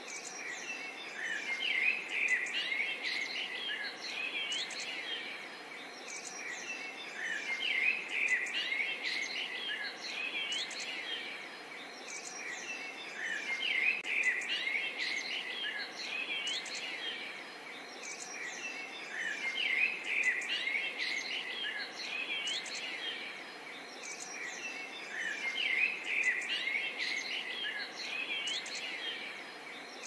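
Many birds chirping and singing together, in dense overlapping calls that swell and fade about every six seconds, over a steady hiss of flowing river water.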